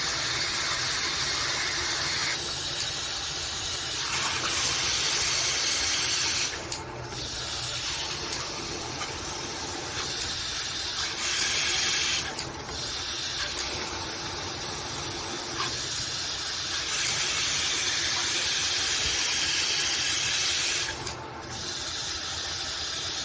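MakeFit shower head spraying water with a steady hiss. The spray changes in level and brightness several times and briefly drops three times: about 7 seconds in, about 12 seconds in and near the end.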